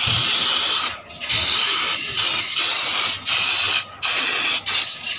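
Aerosol cleaner can spraying in about six loud hissing bursts of half a second to a second each, with short breaks between them.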